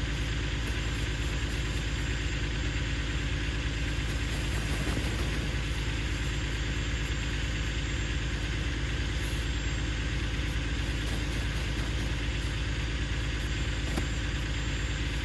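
Steady low engine hum, like an idling motor, unchanging throughout.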